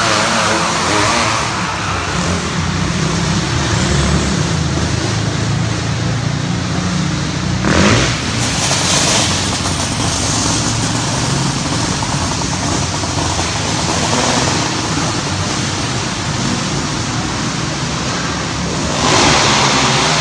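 Race car engines running laps on a track, a steady loud drone. A brief louder rush comes about eight seconds in, and another near the end.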